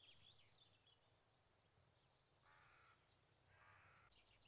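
Faint birds: a brief high twittering song at the start, then two harsh calls about a second apart, each lasting about half a second.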